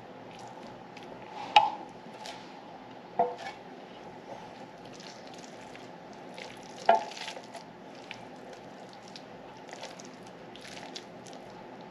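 Red spatula scraping and squishing raw ground-beef meatloaf mixture out of a glass bowl into metal loaf pans, with soft scattered scrapes throughout. Three sharp knocks of the dishes and spatula, about one and a half, three and seven seconds in, are the loudest sounds.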